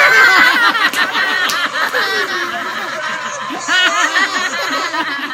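Several people laughing hard together, a run of chuckles and higher-pitched giggles overlapping.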